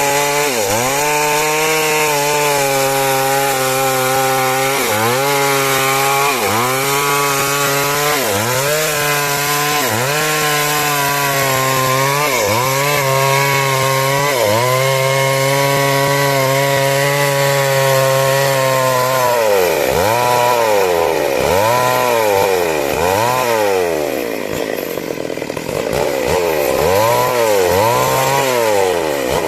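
Chainsaw running at high revs while cutting timber into rafters. The engine pitch dips and recovers over and over as the chain bites into the wood; in the second half the dips come deeper and more often.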